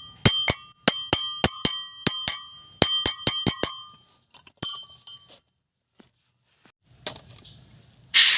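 A metal part being struck about a dozen times in quick, uneven taps, each strike ringing with a bell-like tone, during work on brake parts. Near the end a loud burst of hiss starts.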